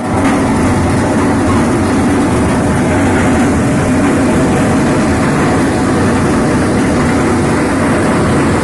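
Amar maize thresher running steadily and loudly.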